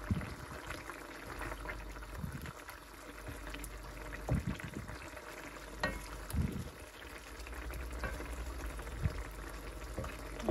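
Fish and cucumber curry simmering in a coated wok, bubbling and crackling steadily. A wooden spatula knocks softly against the pan a few times.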